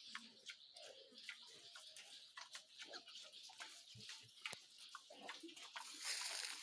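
A sow and her piglets in a pen, making scattered faint clicks and rustles as they feed on betel-nut and banana leaves, with a few small squeaks.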